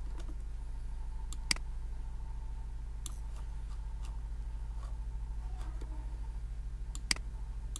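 Computer mouse clicking while paging through a document: a handful of sharp clicks, some in quick pairs, over a steady low electrical hum.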